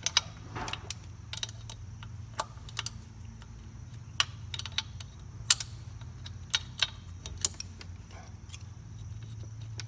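Sharp metal clicks and taps at irregular intervals from a wrench working a tight nut on a KX65 dirt bike's rear wheel to loosen it, with a steady low hum underneath.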